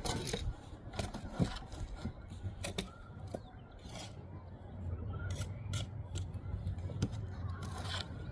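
Steel trowel scraping and clicking against mortar and brick in a quick, irregular run of strokes, with a steady low hum underneath.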